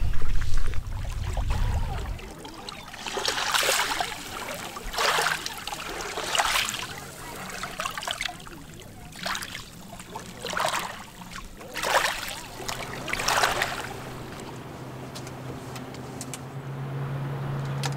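Small lake waves washing onto a pebble shore, a hiss of water over the stones about every second and a half, eight times. After that comes the steady drone of a pontoon boat's motor out on the lake, growing louder near the end.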